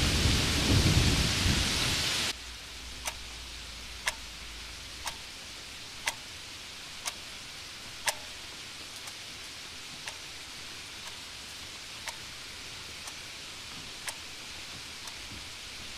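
Rain with the tail of a thunder rumble, cutting off abruptly about two seconds in. Then an analog alarm clock ticking, one sharp tick a second.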